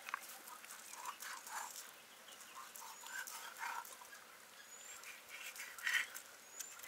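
Faint knife knocks and scrapes on a wooden chopping block as a snakehead murrel fish is scored. Short animal calls and a few quick high bird chirps come and go in the background, the loudest near the end.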